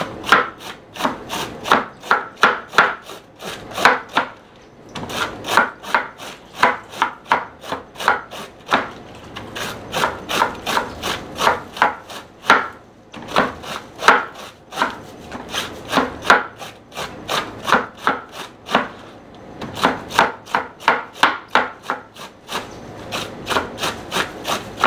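Kitchen knife shredding a head of green cabbage on a wooden cutting board: quick, even slicing strokes, about three a second, with a few short pauses.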